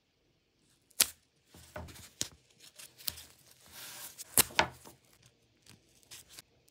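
Hand work at a workbench: several sharp clicks and knocks, the loudest about a second in and again about four and a half seconds in, with short scraping or rasping sounds between them.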